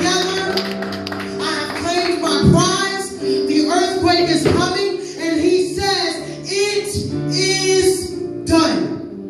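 Church worship music: held keyboard chords with a voice singing over them.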